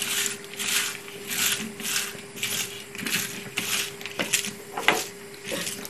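Hand rubbing and squeezing lemon-dressed sliced onions in a stainless steel tray: rustling, squelching strokes about every 0.6 seconds, with light metallic clicks against the tray.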